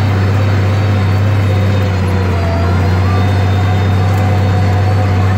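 International Harvester 956 XL tractor's six-cylinder diesel engine running steadily under load while pulling a disc harrow, heard from inside the cab as a loud, even low drone.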